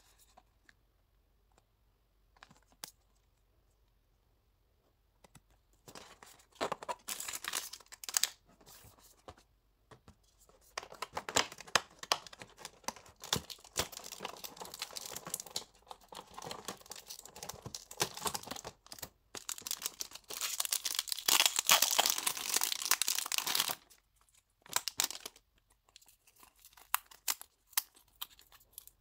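Paper and plastic packaging crinkling and tearing as the cardboard doors of a calendar are torn open and items unwrapped. The rustling comes in bursts starting about five seconds in and is loudest about three quarters of the way through, then gives way to a few light clicks.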